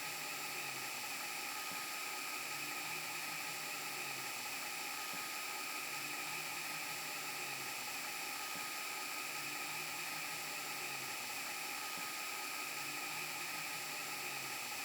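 VHS rewind glitch sound effect: steady tape hiss and static with steady tones running through it, over a low hum that wavers and repeats about every two seconds.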